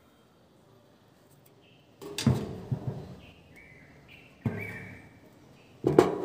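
Three loud, sudden thumps about two seconds apart, each fading away, with short high chirps between them.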